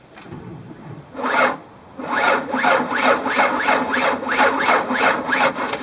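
Car engine being cranked by its starter motor slowly and laboriously, a brief try about a second in and then a longer crank with about two and a half labored turns a second, without the engine catching. The slow cranking is the sign of a low battery.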